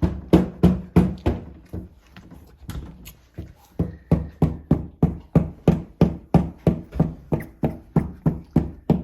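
Rhythmic thumping, about three dull knocks a second, that fades out briefly about two seconds in and then resumes steadily.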